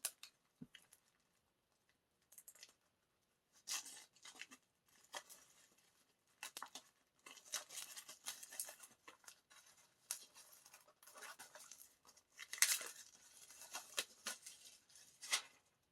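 An album's packaging being torn open and handled: irregular tearing and crinkling rustles, sparse at first and busier in the second half.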